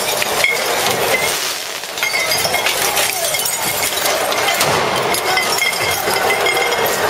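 Glass bottles clinking and smashing on the street in a dense run of sharp impacts with short ringing glass tones, over a constant noisy din.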